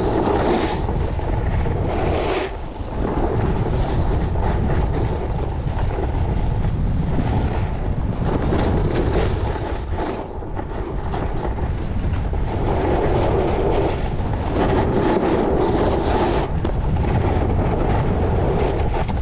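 Wind rushing over the microphone while skiing downhill, with the scrape and hiss of edges sliding over packed, groomed snow. The rush is continuous and strengthens and eases, dipping briefly twice.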